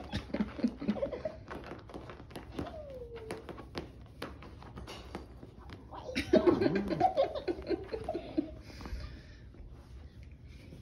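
A puppy's paws scratching and scrabbling at a blanket, many quick rustling scrapes, while a person laughs, loudest about six seconds in.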